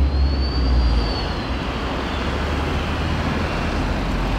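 Street traffic: a vehicle passing close by, with a heavy low rumble in the first second that eases off into a steady traffic noise, and a faint high whine that rises and falls.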